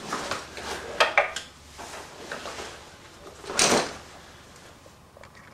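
Small metal gun parts of a CMMG .22 conversion bolt clicking and knocking as they are handled and taken apart, a few sharp clicks near the start and about a second in, and a short rasp of parts sliding or rubbing about three and a half seconds in.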